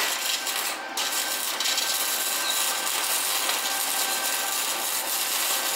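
Wire-feed (MIG) welder arc burning steadily as a bead is laid, a continuous smooth crackling hiss that breaks off briefly just under a second in and then runs on evenly.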